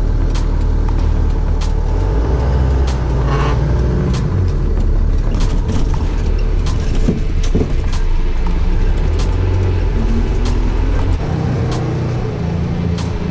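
Hyundai light truck driving, its engine and road noise heard from inside the cab as a steady low hum. A regular tick sounds about every two-thirds of a second, and the level drops a little about eleven seconds in.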